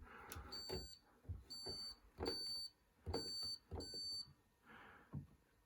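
Hoover Link washing machine control panel beeping as its settings are selected: five short beeps of the same pitch about three-quarters of a second apart, each starting with a click.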